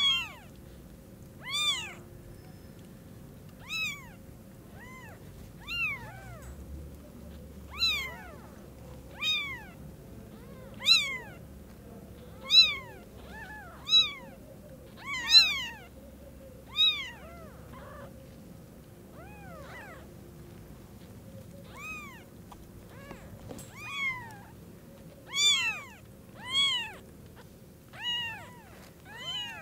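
Newborn kittens mewing over and over: short, high-pitched calls that rise and fall in pitch, one every second or two.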